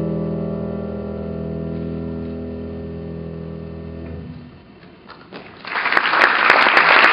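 A held piano chord rings on and fades out about four seconds in. After a brief hush, audience applause breaks out and grows loud near the end.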